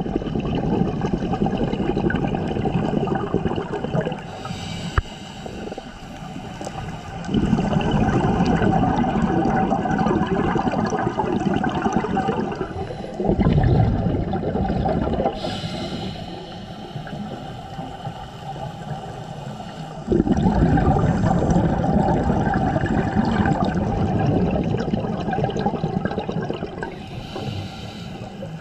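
Scuba diver breathing through a regulator underwater: long, bubbly, rumbling exhalations of several seconds each, about four of them, with quieter gaps between.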